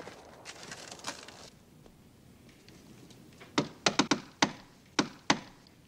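Faint footsteps, then a run of about seven sharp, irregular knocks and rattles at a wooden door over about two seconds.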